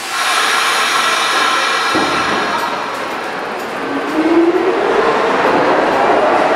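New York City Subway R46 train pulling out of a station. A sudden loud rush of noise starts at once, there is a knock at about two seconds, and from about four seconds in the traction motors' whine rises steadily in pitch as the train accelerates.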